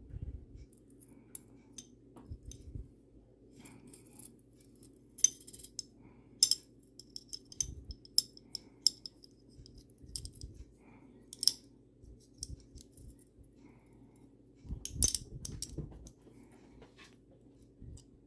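Steel pistol parts of a Star Model S .380 clicking and clinking as they are handled and fitted back together: irregular sharp metallic ticks, with the loudest clicks around five to six seconds in and again near fifteen seconds. A faint steady low hum lies underneath.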